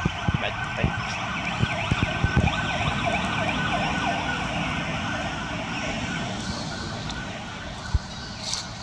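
Young macaques squealing and whimpering in a quick string of short, wavering cries, over a steady high hum.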